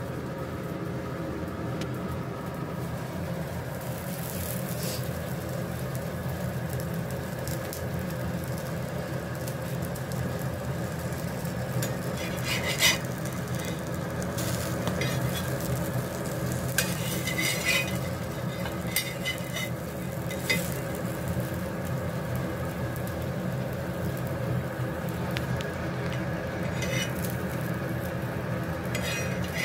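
Egg paratha frying on a flat iron griddle, with a light sizzle over a steady hum. A metal spatula scrapes and clicks against the griddle a few times as it lifts the paratha.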